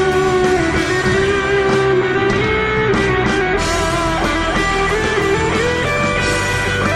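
Rock song in an instrumental passage, led by electric guitar, with no singing.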